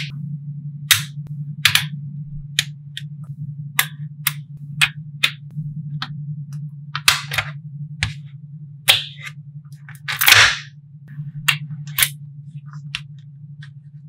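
Small magnetic balls clicking as they snap onto each other, sharp single clicks at irregular intervals while rows are pressed into a flat panel, with a longer rattling clatter of balls about ten seconds in. A steady low hum runs underneath.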